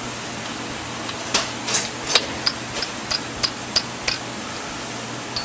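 A run of about eight light metallic clicks, roughly three a second, as a cam drive gear and its fittings are handled on the shaft in a Harley-Davidson Twin Cam engine's cam chest, over a steady shop hiss.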